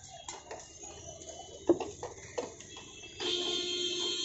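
Steel spoon clinking and scraping in a steel tumbler as puffed rice is stirred for jhal muri, with one sharp clink about a second and a half in. About three seconds in, a loud steady pitched tone with many overtones starts and holds.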